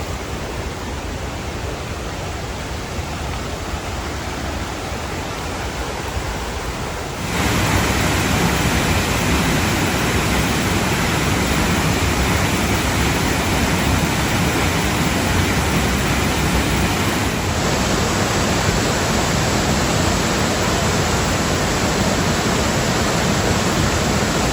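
Waterfall: a steady rush of falling water that jumps suddenly louder about seven seconds in, as if from a closer spot.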